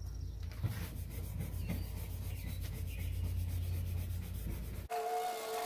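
Stiff scrub brush rubbing quickly back and forth over oven cleaner on a fibreglass boat hull, scrubbing to lift a painted-on boat name. Near the end the scrubbing stops abruptly and a steady two-pitched tone takes over.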